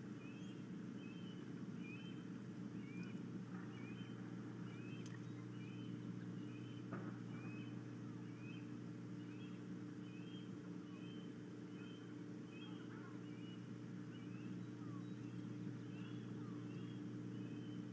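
Osprey calling: a steady series of short, high whistled chirps, about one or two a second, over a steady low hum.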